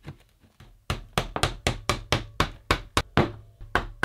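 Hammer driving nails into a wooden beehive honey super frame: a quick run of about a dozen sharp strikes, about four a second, starting about a second in.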